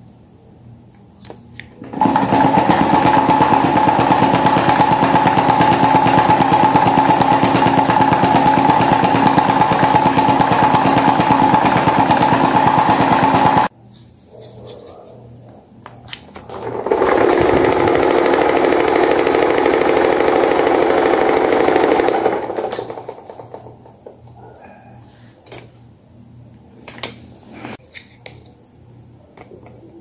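Small electric desk fans running with homemade cut-out blades: a loud, steady whir with a strong hum starts a couple of seconds in and cuts off suddenly. After a short pause, a second, lower-pitched whir swells up, runs for about five seconds and fades away.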